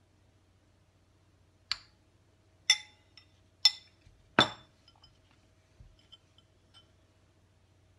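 A metal spoon clinks against a ceramic bowl four times, about a second apart, each strike ringing briefly. The fourth clink is the loudest and fullest. A few faint light clicks follow.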